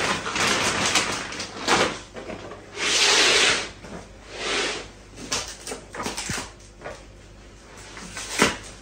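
Clear plastic packaging pulled off a new rolled rug, rustling and crackling in irregular bursts, the longest and loudest about three seconds in, with a few sharp knocks as the rolled rug is handled.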